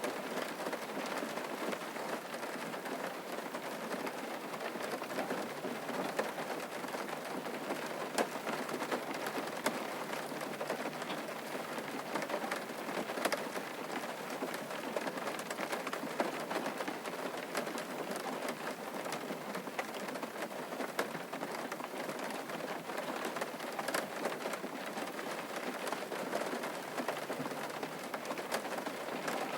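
Steady rain falling on a hard surface: a continuous hiss of rainfall dotted with many small, close drop ticks.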